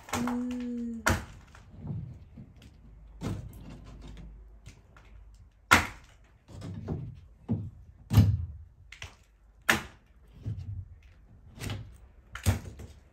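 Water-damaged ceiling board being pulled down by hand: irregular cracks, snaps and dull thuds as soggy pieces break off and drop, the loudest three coming about six, eight and ten seconds in. The board is soaked and rotten from a leak above and comes away easily.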